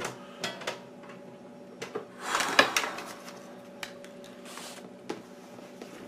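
Scattered clicks and knocks of objects being handled at a desk, with a short rushing noise and a sharper knock a little over two seconds in, over a faint steady hum.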